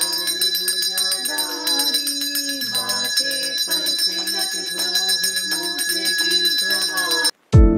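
Small brass puja hand bell rung rapidly and continuously during an aarti, with voices singing the aarti under it. It cuts off suddenly near the end.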